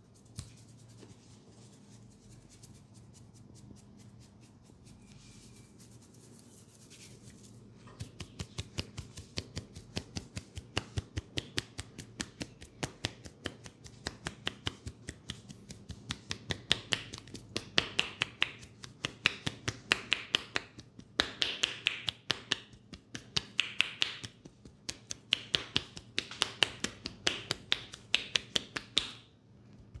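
Percussive head massage: clasped palms chopping and tapping on a man's head, making crisp clapping pops several times a second. Soft rustling of hands in hair comes first; the pops start about a quarter of the way in, grow louder past the middle, and stop just before the end.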